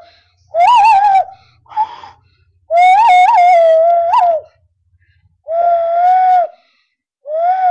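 Hand whistle blown through cupped hands between the thumbs: a series of pitched, whistle-like notes near one pitch, with one long note in the middle that wavers up and down as the fingers move.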